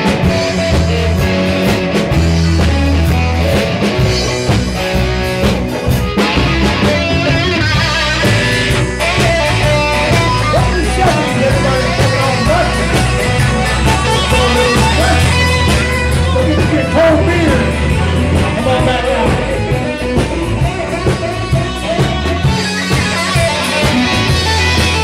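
Live rock band playing: electric guitar over bass and a drum kit, with a guitar solo winding through the middle.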